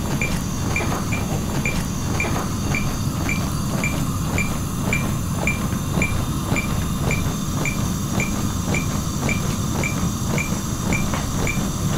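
A defibrillator's CPR metronome beeping evenly about twice a second, short high beeps setting the compression rate, over soft rhythmic knocks of chest compressions on a CPR training manikin. A steady low rumble runs underneath.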